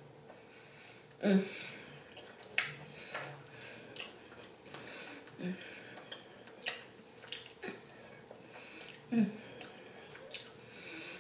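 A person eating: wet chewing and smacking with sharp mouth clicks, broken by a few louder low bumps, the loudest about a second in.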